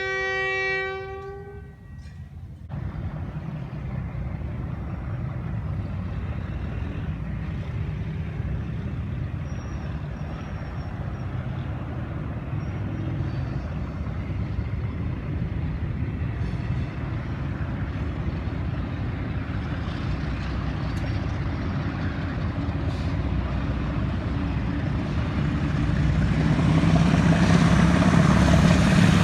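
A Hitachi diesel-electric locomotive's horn sounds once for about two seconds. It is followed by the steady rumble of the approaching train, which grows gradually louder toward the end.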